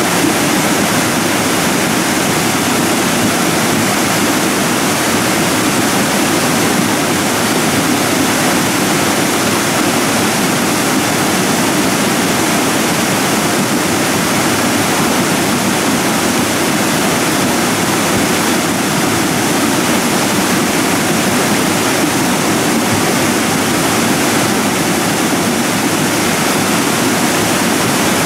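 Debris flow of mud and rock moving down a morainic slope: a loud, steady rushing noise without a break.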